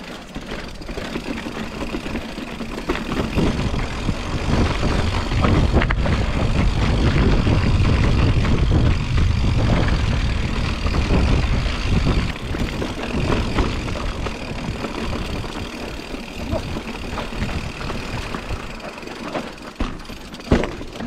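Mountain bike rolling over a loose, stony dirt track: tyres crunching on gravel and the bike rattling with many small knocks. Wind rumbles on the microphone, loudest for several seconds from about four seconds in.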